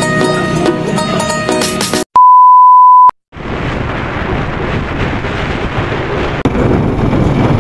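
Background music that stops about two seconds in, then a loud, steady electronic beep, a single pure tone lasting about a second. After a brief gap, a steady rushing wind and road noise from a moving vehicle.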